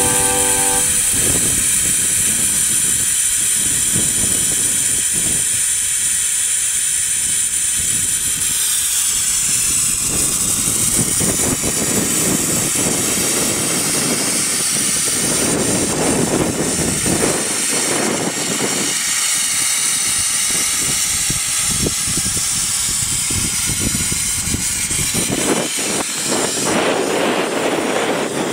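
Steam hissing steadily from the standing Kitson-built steam motor coach SMC1, with louder gusts in the middle and again near the end.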